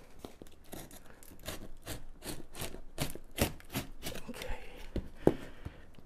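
Utility knife slicing through packing tape on a cardboard box: a string of short scratchy cuts and ticks, a few a second, with the sharpest snap about five seconds in.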